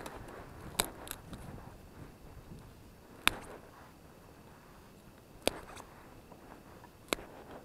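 Dry sticks being snapped and handled for firewood: five sharp cracks spaced one to two seconds apart, with softer rustling of wood between them.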